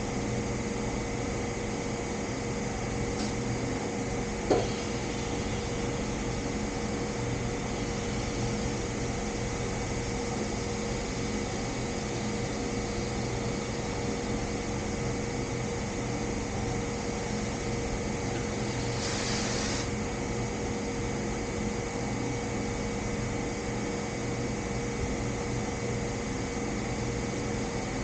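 Steady mechanical hum with several constant tones. There is one sharp click about four and a half seconds in, and a brief hiss of about a second near the nineteen-second mark.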